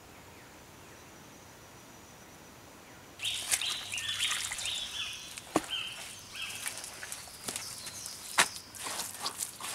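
Quiet forest background with a faint steady high tone, then, from about three seconds in, dirt and stones being scraped and packed by hand, with clicks of stone on stone and two sharp knocks. Birds sing in the background.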